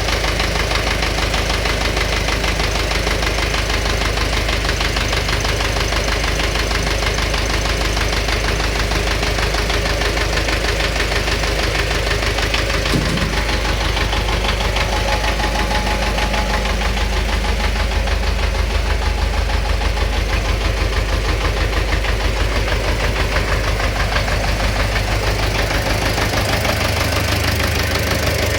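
An engine running steadily with a fast, regular knocking from inside it, the engine knock that the owner is recording. There is a brief low thump about halfway through.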